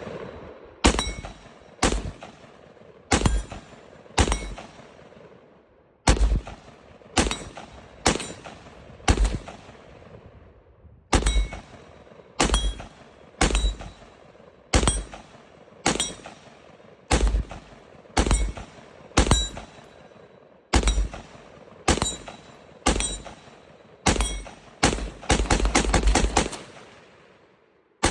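AR-15 rifle firing single shots about a second apart in several strings, each shot trailing off into a ringing echo. Near the end comes a fast run of shots close together.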